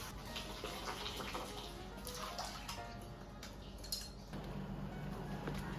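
A pot of water boiling on the stove as noodles are put in and stirred, with light clinks of utensils against the pot. A low steady hum comes in about four seconds in.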